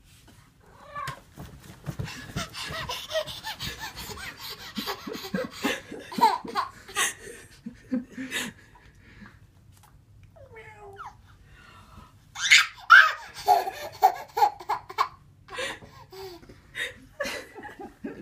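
A baby laughs in short, repeated bursts. There are two bouts with a brief lull between them.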